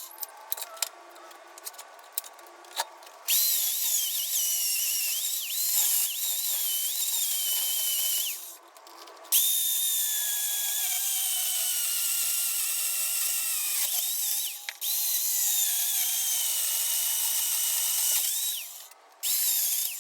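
Worx electric chainsaw cutting through a wood block in several long bursts. Its high motor whine dips in pitch as the chain bites and rises again as it eases off, with short stops between cuts, after a few seconds of quieter knocks at the start.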